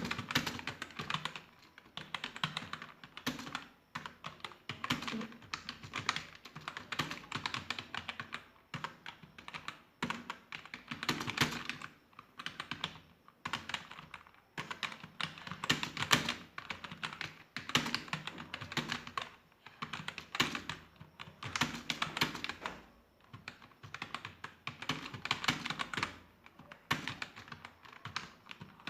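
Computer keyboard typed on fast and continuously: runs of key clicks broken by short pauses every second or two.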